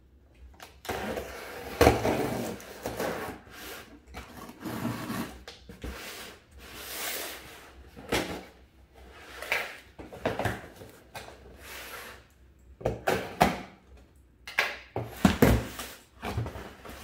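A long cardboard shipping box being opened by hand: scissors slitting the packing tape, then the cardboard rustling and scraping as it is turned and its flaps pulled open. A few sharp knocks from the box bumping the wooden table.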